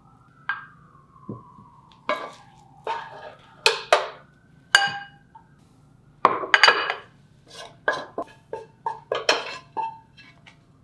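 Dishes and cutlery being handled: a series of sharp clinks and knocks of metal utensils against dishware, with short ringing after each, in two clusters with a brief pause around the middle.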